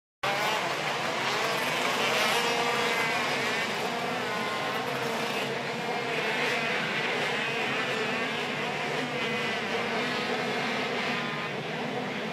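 Many 125 cc two-stroke KZ2 shifter kart engines running together on the starting grid, their pitches overlapping and rising and falling as the drivers blip the throttles.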